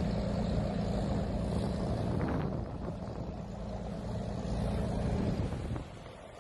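Boat engine running steadily with a deep, even hum, cutting off abruptly near the end, leaving a quieter rush of wind and waves.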